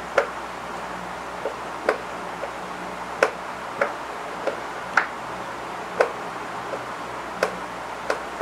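A series of sharp clicks at an uneven pace, roughly one a second, over a steady low hum.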